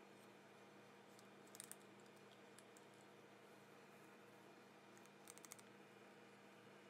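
Near silence, broken by a few faint small clicks of metal parts as the impact driver's hammer assembly is handled and seated in its metal gear case: one cluster about a second and a half in, another around five seconds in.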